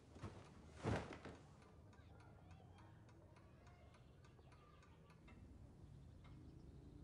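Near silence: quiet room tone with faint ticking, and one brief soft noise about a second in.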